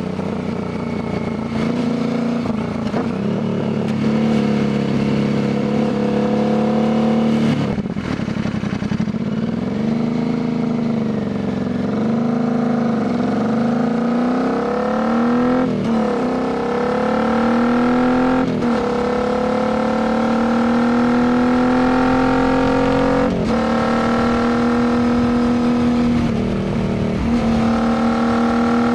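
Royal Enfield Continental GT 650's 648 cc parallel-twin running through an aftermarket Diablo full exhaust under riding load. The engine note climbs with throttle and drops sharply at gear changes about five times, rising and falling with the throttle in between.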